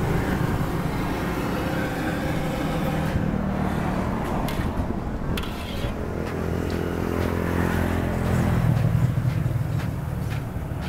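Road traffic: a motor vehicle's engine running, growing louder and loudest about eight to nine seconds in. Under it is the crackle of oil in a wok where balls of dough are deep-frying.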